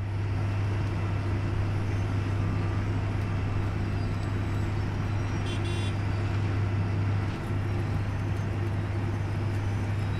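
Wirtgen cold milling machine running steadily under load, its diesel engine giving a deep hum beneath the grinding noise of the milling drum and conveyor as it mills pavement, with a short high clatter about halfway through.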